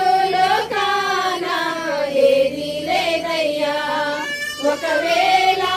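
A group of women singing a Telugu Christian hymn together, their voices holding long sung notes.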